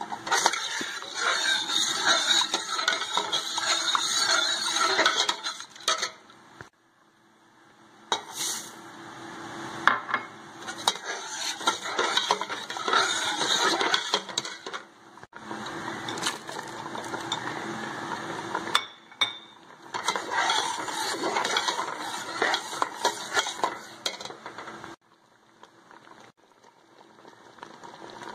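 A metal perforated skimmer spoon stirring and scraping around a steel pot of milky liquid, with clinks against the pot's sides. It comes in several spells with short breaks and goes quieter near the end.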